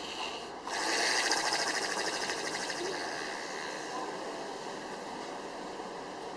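Agonal breathing: one sudden, noisy gasp for air just over half a second in, tailing off over the next couple of seconds. This gasping is a sign of cardiac arrest, typically heard just after the circulation stops.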